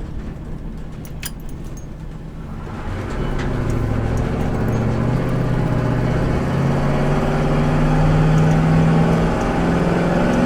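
Lifted truck's engine pulling away and accelerating, rising in pitch and loudness from about three seconds in, with a short dip and step up near the end, like a gear change. A few sharp clicks come in the quieter opening seconds.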